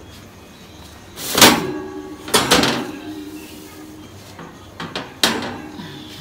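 Scraping and clattering of a baking dish on a wire oven rack as it is pulled forward and lifted out of the oven: three loud clanks, the first two followed by a short metallic ring.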